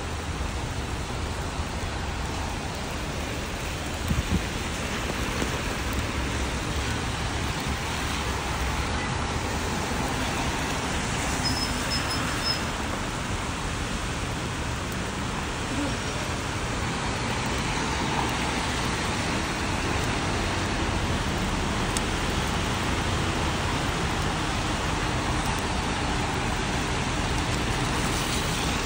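Steady rain falling on streets mixed with city traffic on wet roads: tyres hissing through water and engines rumbling as cars pass. There are a couple of brief knocks about four seconds in.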